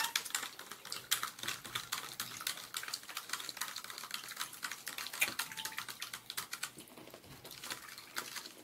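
Metal spoon stirring a drink in a clear plastic cup: rapid, light clicks of the spoon against the cup, thinning out near the end.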